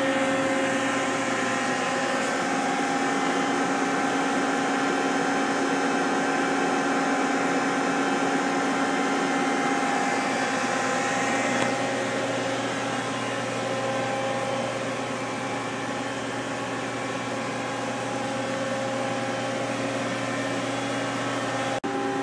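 Steady hum of a powered-up 1997 Mazak Quick Turn 20 CNC lathe with its spindle stopped, holding several constant tones.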